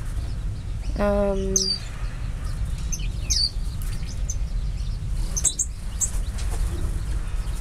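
Small aviary finches chirping, with short high calls scattered throughout, over a steady low rumble. About a second in there is a brief low hum-like tone.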